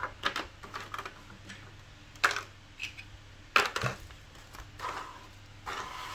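Plastic packaging being handled: a series of sharp clicks and knocks as a black plastic tray insert and shaver parts are moved about and set down on a table, the loudest about two and three and a half seconds in, with a brief rustle near the end.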